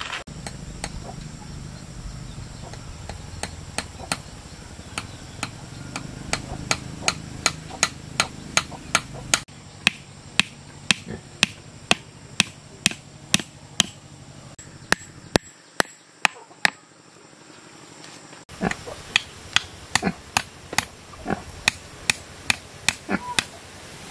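Claw hammer striking a bamboo and wooden stake frame as it is knocked together: a steady run of sharp blows, about two a second, in several stretches.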